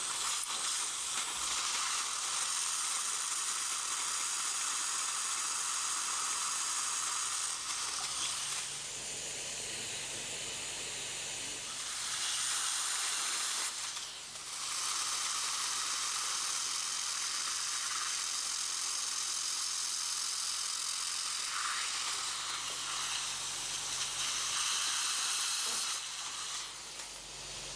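Dental surgical suction tip hissing steadily as it draws air and fluid from the implant site, its level dropping and returning a few times.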